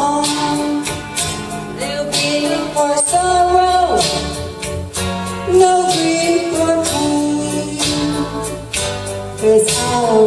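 A woman singing a slow Christmas ballad into a microphone over a backing track, with long held notes.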